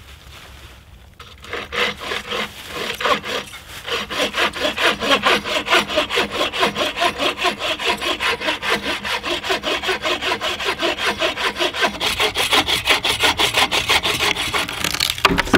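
Folding bow saw cutting through a dry, dead seasoned red oak limb in steady back-and-forth strokes, about three a second, with a sudden knock near the end.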